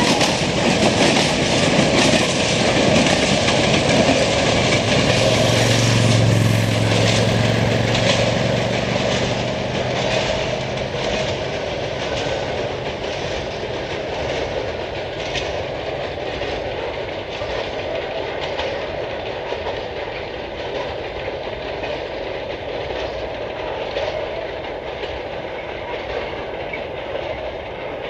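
Freight train of tank wagons rolling away, the wheels clacking over rail joints in a regular rhythm while the rumble slowly fades with distance. About five seconds in, a low hum sounds for several seconds.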